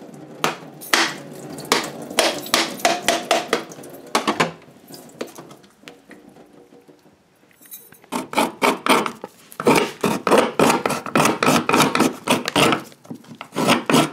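A whole coconut being cracked open with a series of sharp knocks over a stainless-steel sink. After a few quiet seconds comes a fast run of rough, rasping strokes as the coconut flesh is grated.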